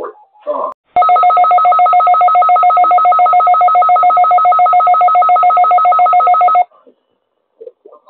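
Emergency Alert System attention signal: a loud, steady electronic alarm tone of several fixed pitches with a fast flutter. It switches on abruptly about a second in and cuts off suddenly after about five and a half seconds.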